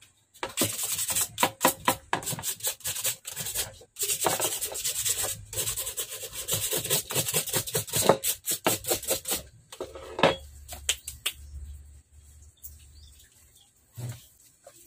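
Small steel slingshot frame, cut from a bicycle seat's frame, rubbed down by hand against an abrasive tool in quick back-and-forth scraping strokes for about nine seconds, then a few scattered strokes.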